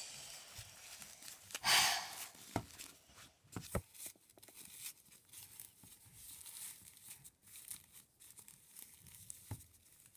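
Rustling and crinkling from a toy doll and its paper diaper being handled. There is a brief louder rustle about two seconds in, then scattered light taps and crinkles.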